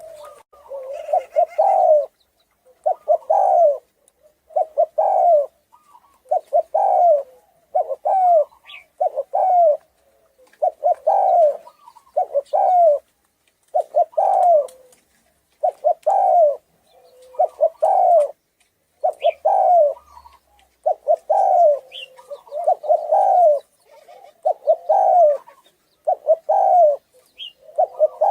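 Spotted dove cooing, repeating its rolling coo phrase about every two seconds.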